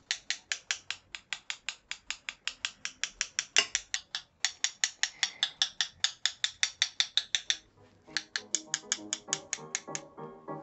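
Paintbrush tapped rapidly against the handle of a second brush to flick spatters of watercolour paint onto the paper: a run of sharp, even taps, about six a second, that breaks off briefly about eight seconds in and then resumes for a couple of seconds.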